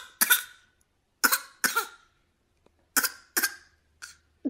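A baby putting on a fake cough: a run of short, forced coughs, mostly in quick pairs, about five in all.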